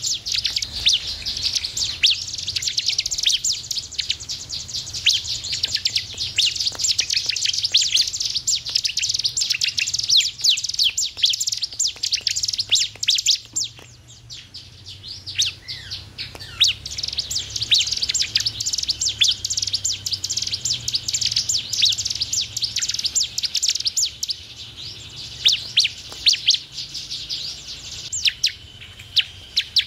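Bar-winged prinia (ciblek) singing: a fast, dense run of high, sharp chirps that eases off for a couple of seconds about halfway through, then picks up again.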